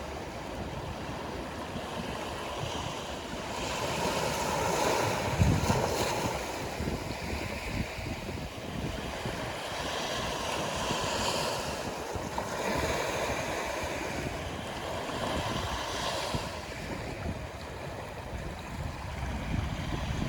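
Sea waves washing in and breaking on a rocky shore, swelling and falling every few seconds, with wind buffeting the microphone.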